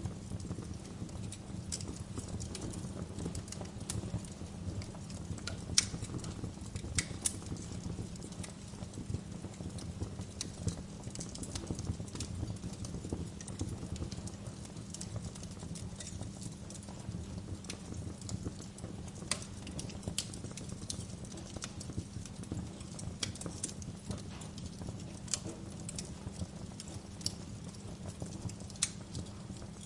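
Wood fire in a fireplace crackling, with irregular sharp pops scattered over a steady low rumble.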